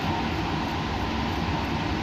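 Steady laboratory machine noise: an even, unbroken rush with a low hum and a faint steady whine through it.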